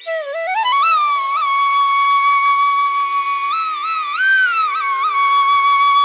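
Background flute music: a single flute line slides up into a long held note with small bends and a brief rise near the middle, over steady sustained tones.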